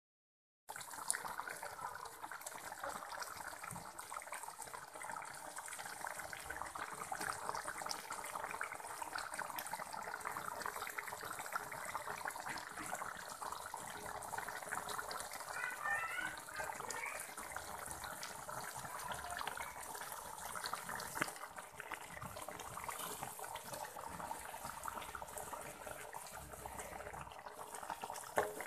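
Thick rendang sauce simmering in a wok, a steady crackle of small bubbles popping and spitting.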